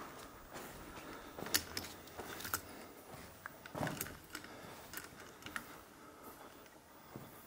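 Irregular small clicks, knocks and crunches of a person moving on foot, with a slightly heavier crunch about four seconds in.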